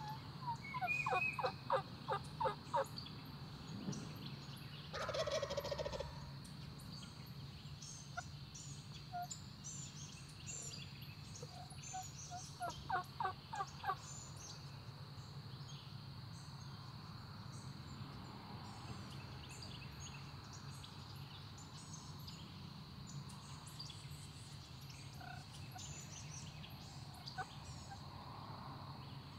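Eastern wild turkey gobbler gobbling twice, each gobble a fast rattling run of notes, the second about ten seconds after the first. A short rushing noise comes a few seconds after the first gobble, and small birds chirp throughout.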